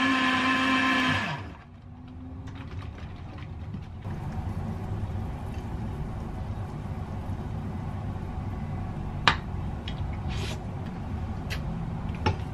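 Countertop blender running steadily on a jug of liquid, then switched off a little over a second in, its motor winding down with a falling pitch. A low steady rumble follows, with a few light clicks, one sharp click near the end.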